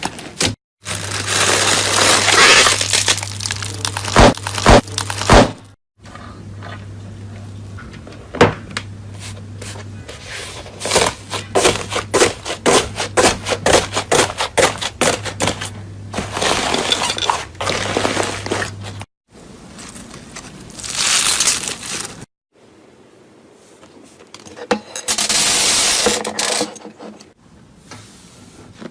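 Slime being handled in a run of short clips, with crackling, clicking and crunching as it is squeezed and pressed.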